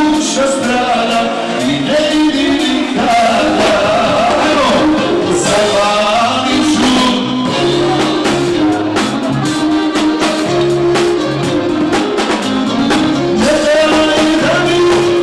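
A man singing through a handheld microphone with a live band behind him, a drum kit keeping a steady beat under the melody.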